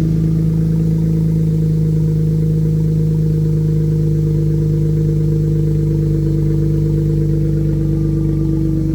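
2017 Jeep Grand Cherokee engine running loud and steady at an even speed with its rear exhaust section removed, so the exhaust comes out unmuffled.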